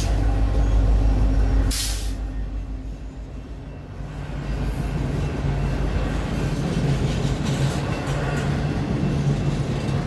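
Freight train's diesel locomotive running with a low, steady engine rumble. A short burst of hiss about two seconds in, then the engine noise dips and builds back up.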